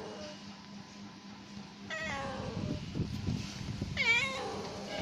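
Female domestic cat meowing twice: a falling meow about two seconds in, then a rising-and-falling meow about four seconds in. Low rumbling noise sounds between them.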